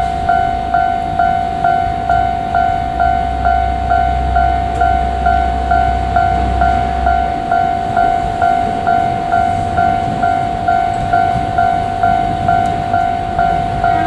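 Japanese railway level-crossing warning bell ringing, an electronic ding repeating evenly about twice a second. A low rumble sits underneath for the first half.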